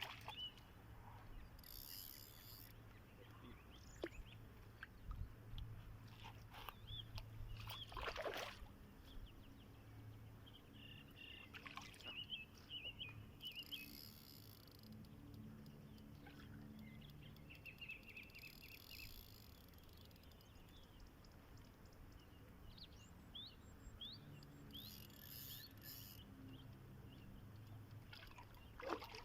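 Quiet outdoor ambience: small birds chirping now and then over a low steady hum, with a few faint knocks.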